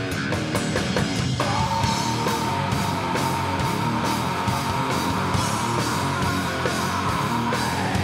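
Live heavy metal band playing: distorted electric guitar and drum kit. A single long high note comes in about a second and a half in, is held, and slides down near the end.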